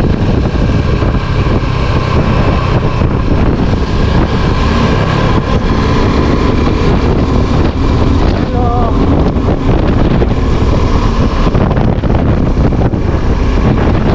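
Heavy wind buffeting the microphone over a steadily running vehicle engine. A short wavering tone comes through about nine seconds in.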